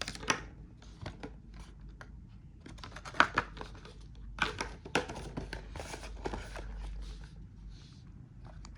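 Plastic cable packaging being handled: irregular crinkling and rustling with scattered clicks, with a few sharper crackles about three seconds in and again around five seconds in.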